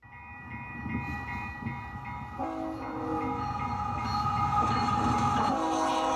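Diesel locomotive sounds for a model EMD diesel: a bell ringing about three times a second, then two blasts of a multi-note air horn over a steady engine rumble.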